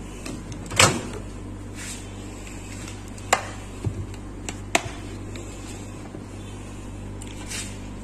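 A few sharp clicks and knocks as a microwave oven door is opened and a plastic Sistema rice steamer is handled and set inside; the loudest click is about a second in.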